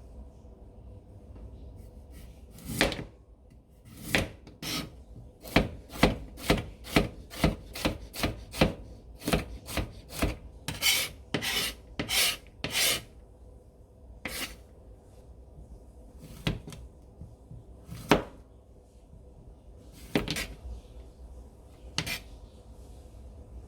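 Kitchen knife chopping vegetables on a cutting board: a run of quick strokes, about two a second, then a few single strokes spaced out near the end.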